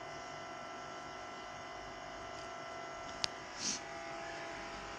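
Steady electrical buzz with many fixed tones, broken by a sharp click about three seconds in and a short hiss just after it.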